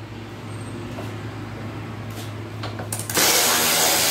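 An impact wrench starts running about three seconds in, loud and steady, loosening a 13 mm nut on a strut mount. A few light clicks come just before it, as the socket is fitted onto the nut.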